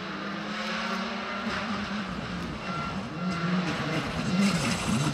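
Skoda Fabia R5 rally car's turbocharged four-cylinder engine approaching, holding a steady note and then rising and falling in pitch with throttle and gear changes about three seconds in, growing louder toward the end.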